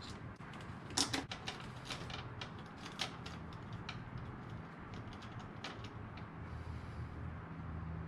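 Scattered sharp clicks and taps of plastic and metal parts as an ignition coil and its wiring connector are worked into place on the engine, the loudest cluster about a second in.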